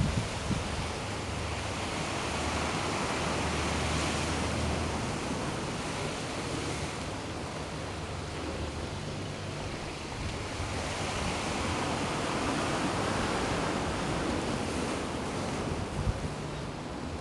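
Sea surf breaking and washing over rocks, a steady rush that swells and eases, with wind rumbling on the microphone. A brief bump near the end.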